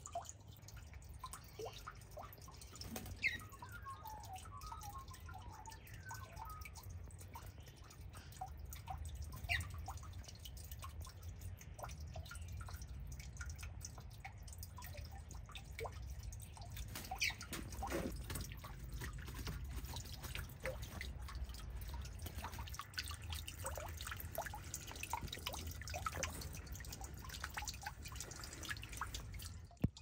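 Bird sounds heard faintly outdoors: scattered short chirps and a few thin whistled notes that slide down in pitch, with a brief run of quick twittering a few seconds in, over a steady low rumble.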